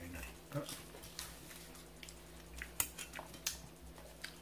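A few sharp, scattered clicks and taps of a fork against a dish while a salad is eaten.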